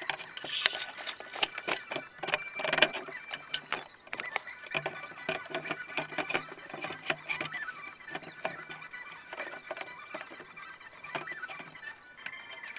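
Clicks, knocks and light clatter of wooden parts and metal linear bearing blocks being handled and fitted onto steel guide rods, irregular, with the loudest knocks in the first three seconds, over a steady thin high tone.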